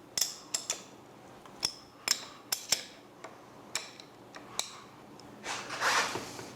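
A 17 mm wrench clinking against a fork bolt as it is tightened, about ten short sharp metallic clicks at irregular intervals. A brief scraping rustle follows near the end.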